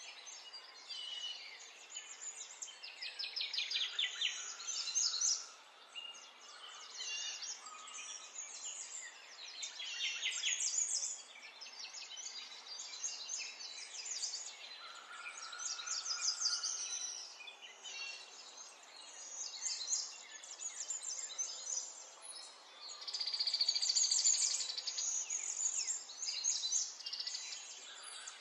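Songbird singing in fast trills and chirps, in phrases a few seconds long that keep recurring.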